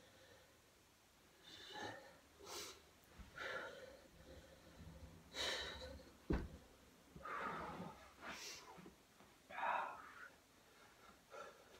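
Hard, audible breathing of a man holding a headstand, short breaths in and out roughly once a second. A single dull thump about six seconds in as he comes down out of the headstand.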